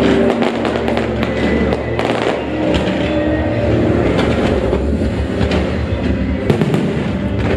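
Aerial fireworks bursting and crackling in a fast run of sharp pops and bangs, over a continuous rumble and the show's music.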